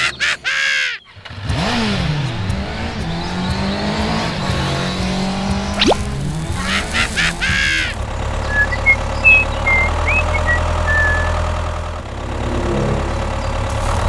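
Engine sound for a toy tractor, with a rising and falling rev about two seconds in and a steady low hum later on. Short high-pitched squeaky sounds come at the very start and again about halfway through, and a few faint high chirps follow.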